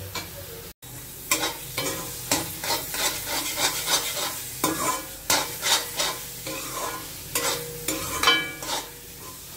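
A metal spatula scraping and stirring thick, nearly dry carrot halwa around an aluminium kadhai in irregular strokes, a few a second. The milk has fully cooked off and the halwa is in its final frying stage. The sound cuts out for an instant just under a second in.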